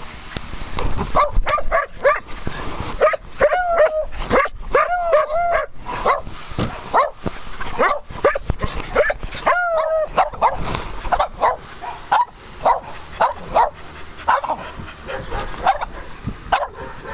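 Several dogs barking and yipping as they play together, a steady run of short sharp barks with longer, high, rising-and-falling yips about four to six seconds in and again near ten seconds.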